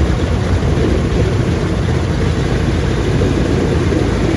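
Pratt & Whitney radial piston engines of a vintage multi-engine warbird running just after start-up, a steady low rumble.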